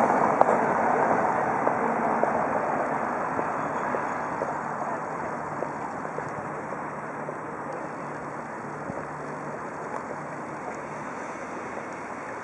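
Steady rushing engine noise with a faint low hum, fading gradually as its source moves away.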